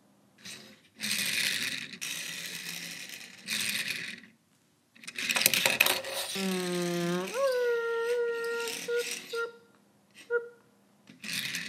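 Toy car rolled back and forth across a wooden tabletop, giving several bursts of rolling hiss and clatter. Then comes a "vroom" engine-rev sound that rises in pitch and holds one note for about two seconds.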